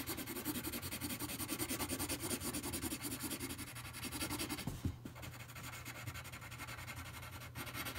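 Pencil shading on paper: rapid back-and-forth scribbling strokes of graphite scratching across the sheet. The strokes are fuller for the first half and lighter from about halfway.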